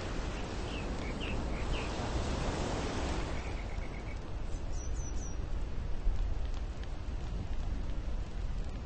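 Steady outdoor rushing noise with a low rumble, and a few short bird chirps: several in the first two seconds and a quick higher run about five seconds in. The rushing thins out after about three seconds.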